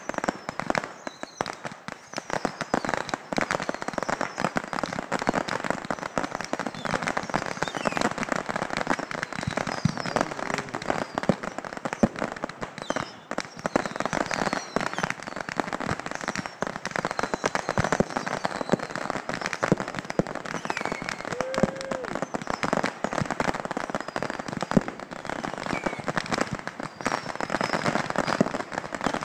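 Thousands of bottle rockets and other fireworks firing at once, set off together by a burning kerosene trough: a dense, unbroken crackle of rapid pops and bangs that holds steady throughout.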